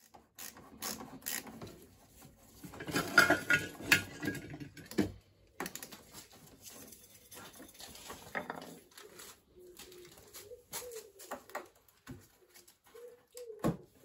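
Hands working on a motorcycle's fuel line fittings: scattered clicks, knocks and rustling of parts and gloves, loudest about three seconds in. In the last few seconds a pigeon coos faintly in short phrases.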